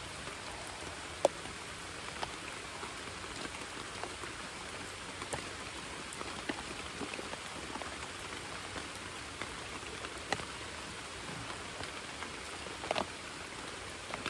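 Steady rain falling on a creek and the surrounding leaves, an even hiss, with scattered sharp taps, the loudest about a second in and a small cluster near the end.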